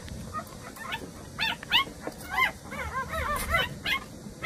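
Newborn Jindo puppies whimpering, a run of short high cries that each rise and fall in pitch. They become frequent from about a second and a half in, with several puppies crying over one another.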